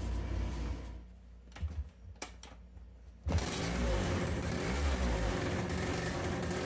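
Lambretta scooter's two-stroke single-cylinder engine starting after a couple of clicks about three seconds in, then running steadily through a Gori expansion pipe fitted with a newly made SIP silencer.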